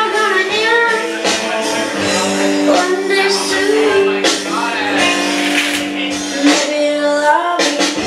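A song playing loudly over the club sound system: a voice singing over held chords, with a steady drum beat.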